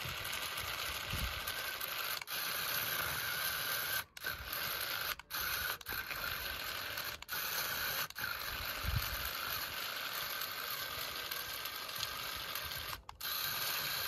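Small geared electric drive motor of a remote-control model Swaraj 855 FE tractor, whirring steadily as it pulls a loaded trolley through sand. It cuts out briefly several times as it is driven forward and back.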